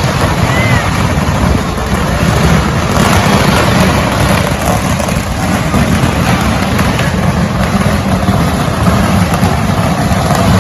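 A pagara, a very long string of firecrackers, going off in a loud, unbroken, rapid crackle of small bangs.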